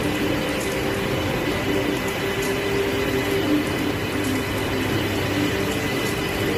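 Metro train pulling in along the platform and braking to a stop: a steady rumble of wheels and running gear with a low whine of a few steady tones.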